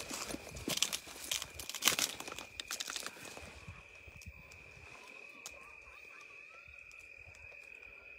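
Footsteps crunching and snapping through dry brush and twigs for about three seconds, then stopping. A steady high-pitched whine carries on underneath.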